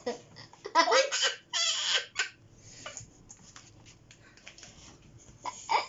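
A small child laughing in fits: loud bursts of laughter about a second in, a quieter pause, then another burst near the end.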